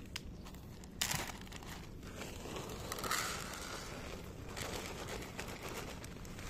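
A ginger tabby cat's fur rubbing against the recording phone's microphone, heard as scratchy crackling in bursts about a second in, around three seconds, and again near five seconds.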